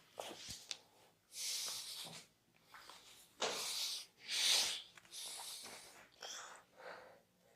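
Hands rubbing and stroking over skin in massage strokes: a series of about seven short, hissing swishes, with a few small clicks near the start.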